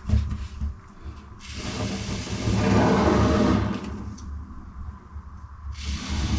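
Aerosol can of expanding foam spraying with a hiss as foam is injected under a cracked fibreglass shower tray: a long hiss of about two seconds, then a second starting near the end.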